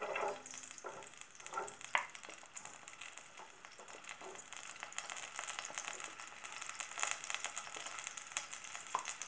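Chopped onion going into hot oil in an enamel pot, pushed off a plate with a wooden spoon, with a few scrapes and knocks in the first two seconds. The oil then sizzles and crackles around the onion, growing denser from about five seconds in.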